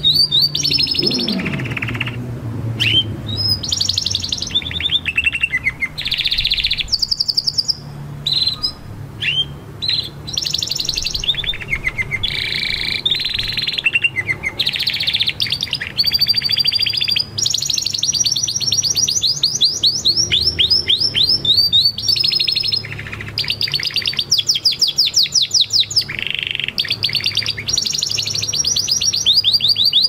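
Spanish Timbrado canary singing: phrase after phrase of fast trills and rolls of rapidly repeated notes, with short gaps between phrases, over a low steady background hum.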